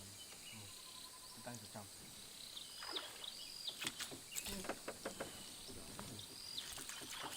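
Quiet outdoor ambience: a steady high-pitched insect drone, with a few short whistled calls and faint, distant voices.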